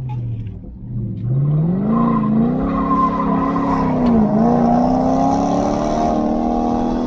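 Car engine pulling hard under acceleration, its revs climbing steeply about a second in after a brief drop. There is a short dip in pitch around four seconds in, and then the revs rise again.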